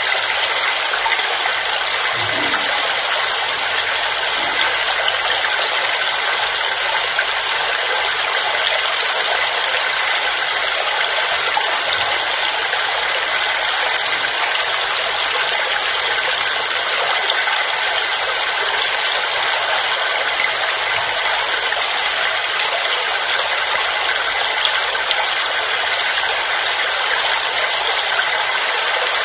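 Waterfall: a steady, unbroken rush of falling water, mostly hiss with little low rumble.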